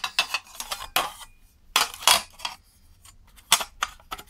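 Plastic parts of a Salter kitchen scale's casing clicking and knocking against each other as they are handled and fitted together: a run of irregular sharp clicks and clatters, the loudest about halfway through.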